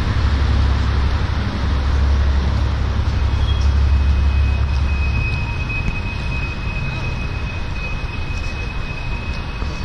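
Wind buffeting the camera's microphone with a heavy low rumble that drops away about five seconds in, over the steady noise of street traffic. A faint steady high tone runs through the second half.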